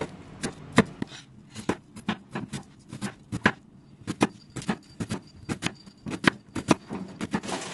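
Chef's knife dicing an onion on a bamboo cutting board: a steady run of short, sharp knife strikes on the wood, about three a second, with a brief pause a little past halfway.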